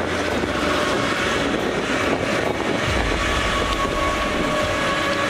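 Forestry harvester running, its engine and hydraulics giving a dense, steady mechanical noise, with a deeper low rumble coming in about three seconds in.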